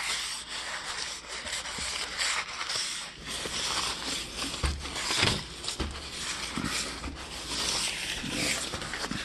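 Paper towel wiping a door's glass pane: a continuous rubbing hiss that swells and eases with the strokes, with a few soft bumps midway.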